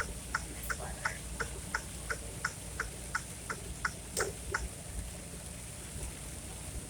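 A car's indicator flasher clicking steadily, about three clicks a second, stopping about four seconds in, over the low hum of the car on the road.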